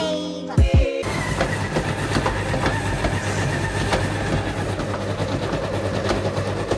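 Electric stand mixer running with a steady motor hum, churning cake in its bowl. It starts about a second in, after a few beats of music.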